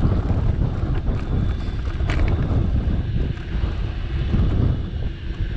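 Wind buffeting the camera microphone while riding a bicycle, a steady low rumble, with a faint click about two seconds in.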